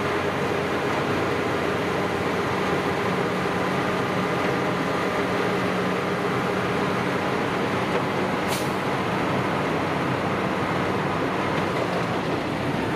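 Heavy snow-removal vehicle engine running steadily with a continuous hum, and a brief hiss about two-thirds of the way through.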